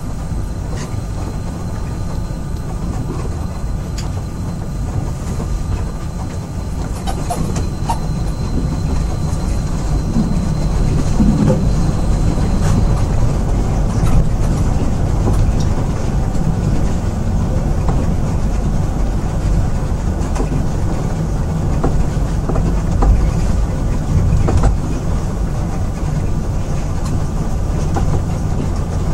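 Moscow monorail car running along its elevated track, heard from inside the carriage: a steady low rumble with a few light knocks and clicks, and a faint high whine that fades out about halfway through.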